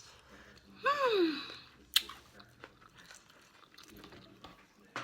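A person eating seafood close to the microphone: soft chewing and smacking, with one sharp crunch or crack about two seconds in. Just before it comes a short vocal sound falling in pitch, like an appreciative "mm".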